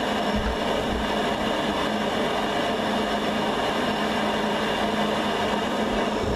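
Worcester Bosch combi gas boiler running on a heating demand, its burner fired and pump going: a steady hum over an even rushing noise.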